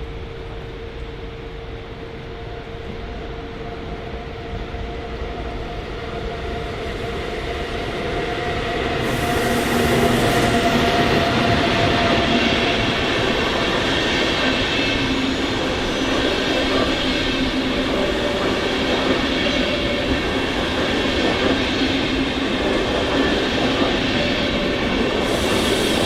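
A train approaching and running through the station, growing louder over the first ten seconds and then running steadily with several whining tones. There is a short hiss about nine seconds in and again near the end.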